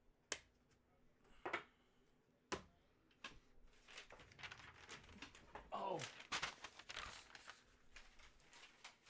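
Faint handling of trading cards and their plastic: a few sharp clicks in the first seconds, then a stretch of crinkling and rustling.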